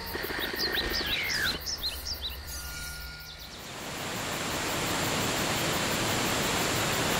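Jungle ambience: short chirping bird calls at first, then a steady rush of falling water that fades in about three and a half seconds in and holds.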